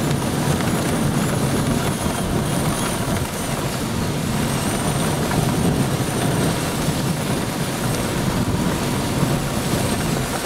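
Hurricane-force wind blowing hard and steadily past a truck's partly open window and buffeting the microphone, with a faint high whistle wavering above it.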